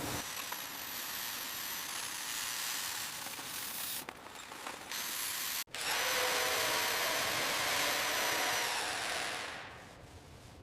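A power tool running steadily with a hissing whir, cutting out briefly about four seconds in and again near six seconds, then fading away near the end.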